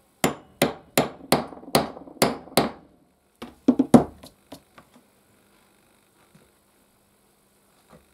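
Hammer blows on a metal punch held upright on leather: seven evenly spaced strikes in about two and a half seconds, then after a short pause a quicker, uneven run of hits, and a couple of faint taps near the end.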